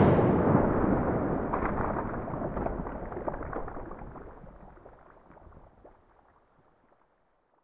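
Dying tail of an explosion-like sound effect: a crackling rumble that fades steadily away over about six seconds into silence.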